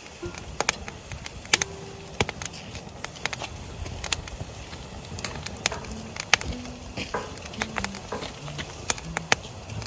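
Wood fire crackling in a fire pit, with irregular sharp pops and snaps over a low steady hiss of burning.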